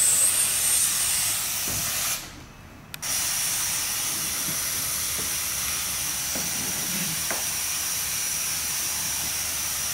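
Compressed air hissing steadily out through a pressure regulator wound anti-clockwise, letting the air out of an inflated rubber pipe-patch packer so it deflates. The hiss drops out briefly about two seconds in, then carries on with a thin high whistle in it.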